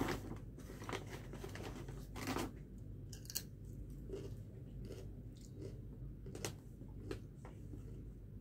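Quiet eating sounds: chewing and crunching of chips, with scattered small clicks and rustles as a dried leaf wrapper is peeled off a suman rice cake; the strongest rustles come about two and three seconds in.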